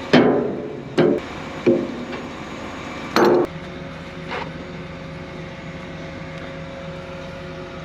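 A few sharp knocks and clunks of hand tools and parts against metal while fuel filters are being changed: one right at the start, two more within the next two seconds, and a short rattling clatter a little after three seconds. A steady low hum runs underneath.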